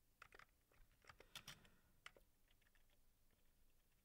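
Faint, scattered computer keyboard keystrokes in near silence, with several quick presses in the first two seconds and only a few after.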